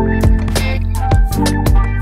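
Music with a steady drum beat over bass and pitched instruments.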